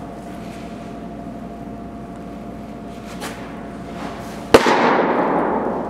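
A thrown baseball, a change-up, smacking into a catcher's mitt once about four and a half seconds in: a single sharp pop that rings on in a reverberant indoor batting cage. A faint steady hum runs underneath.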